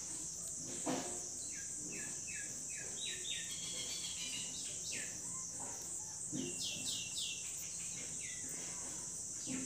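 Steady, high, finely pulsing buzz of insects in the background, with groups of short, quick, descending bird chirps about two to three seconds in and again near seven seconds. Faint scratches and taps of a pen writing on paper.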